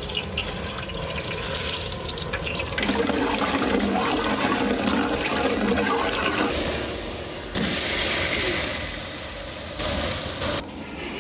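Seeds and spices sizzling and spitting in hot oil in a large aluminium cooking pot, stirred with a metal spatula. About seven and a half seconds in, a louder sizzle starts suddenly as chopped eggplant goes into the oil for eggplant pachadi, then eases about two seconds later.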